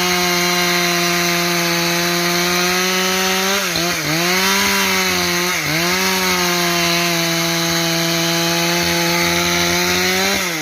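Two-stroke chainsaw running at high revs while cutting planks from a log. Its pitch dips briefly twice, about four and six seconds in, then recovers.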